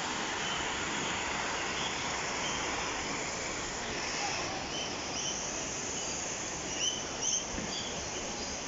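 Water rushing down a small rocky cascade, a steady rush, with short high bird chirps calling several times in the second half.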